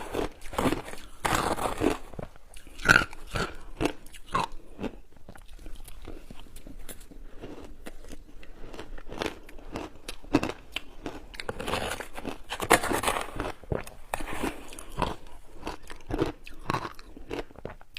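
Close-up crunching and chewing of shaved ice in big mouthfuls: irregular sharp cracks and crunches as the frozen ice breaks between the teeth, busiest about a second in and again around twelve to thirteen seconds.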